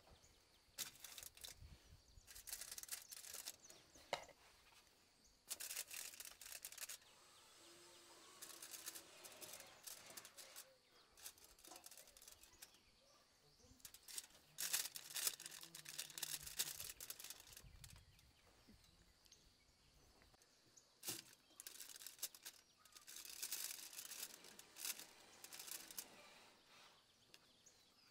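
Faint, intermittent crinkling and rustling of aluminium foil on the trays of a metal rack as food is set down and handled, in several short bursts with quiet gaps between.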